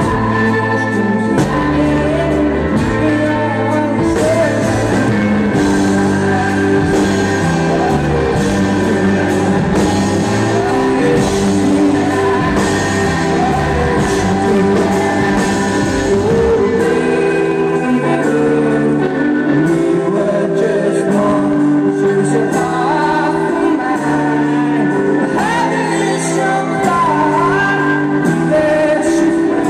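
A rock band playing live: a male lead singer over electric guitar, bass and drums, with the sound of a large room.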